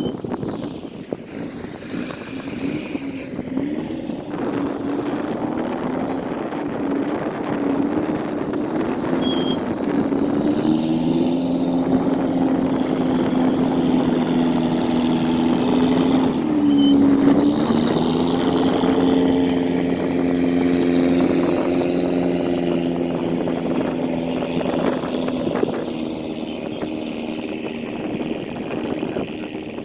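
Motorboat engine running steadily, heard from on board, over a rush of water and wind. About halfway through the engine note dips briefly and comes back up.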